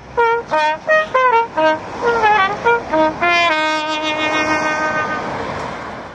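Solo trumpet played on the street: a quick run of short notes, several bent down in pitch, then one long held note. It fades out near the end over a steady hiss of street noise.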